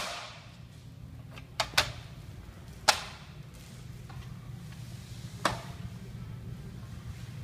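Aluminium banner-stand parts clacking as they are handled and set down on a table: a few sharp knocks at uneven intervals, over a steady low hum.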